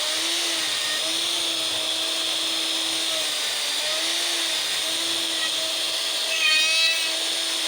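Makita router running steadily while levelling an end-grain elm slab, its pitch sagging slightly now and then as the bit takes load. A brief louder, higher whine comes about six and a half seconds in.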